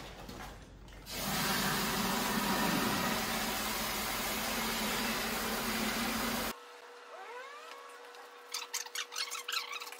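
An electric drill paddle mixer churning grout in a bucket, running steadily and loudly for about five seconds and then cut off abruptly. Faint scraping and light ticks follow near the end.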